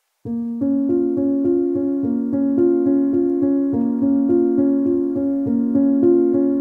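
Intro music on a piano-like keyboard: a steady run of evenly struck notes, about three to four a second, starting a moment in.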